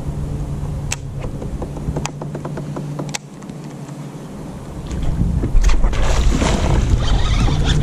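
A bass striking a topwater frog and the hooked fish splashing at the surface, a loud churning of water that starts about five seconds in and keeps going. Before it there is a steady low hum with a few sharp clicks.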